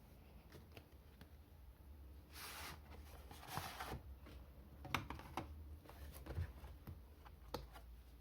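Packaging of an N-gauge model train set being handled: two short bursts of rustling, then a few sharp clicks of plastic parts.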